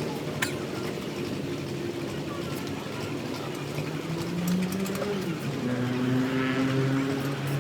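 An engine running, its pitch stepping up and down a few times as the speed changes. There is a sharp click about half a second in.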